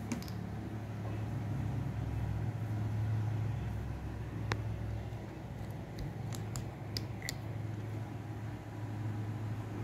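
Handling noise: a sharp click about halfway through, then a quick run of light clicks, over a steady low background hum.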